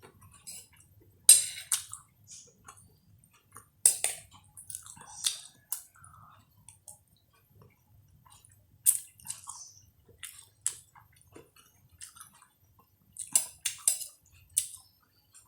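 A person eating close to the microphone: chewing, with scattered short, sharp clicks and smacks at irregular intervals.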